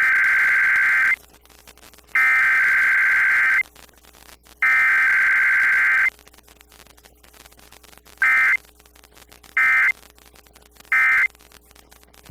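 Emergency Alert System SAME data bursts from a radio station's required weekly test. Three longer warbling header bursts, each about a second and a half long, are followed by three short end-of-message bursts about a second and a half apart, with no attention tone between them.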